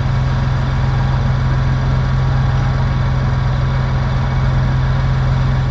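Heavy engine running steadily at a constant speed, a loud deep even hum.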